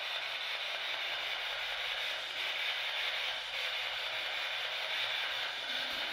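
Steady static-like hiss, even and unbroken, with no distinct knocks or voices.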